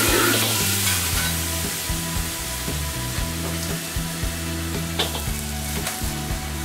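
Vegetables and meat sizzling as they are stir-fried in a wok, loudest at the start and easing off after about a second, with the ladle clinking against the wok about five seconds in.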